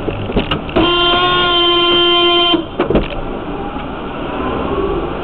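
A car horn sounds one long, steady blast of about two seconds, starting about a second in. Under it is the road and engine noise of a car driving, heard from inside the vehicle.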